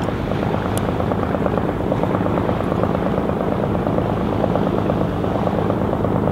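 A small fishing boat's inboard diesel engine running steadily as it motors past, a rapid even chugging.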